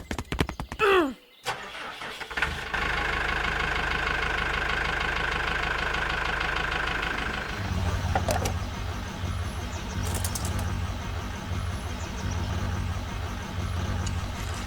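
Clicks, then a steady motor whine lasting a few seconds. About halfway in it gives way to a low engine-like drone that pulses slightly and runs on steadily.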